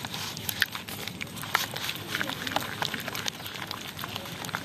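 Hands squeezing and mixing thick chocolate biscuit cake batter in a bowl: wet squelching with many small, irregular sticky clicks and smacks.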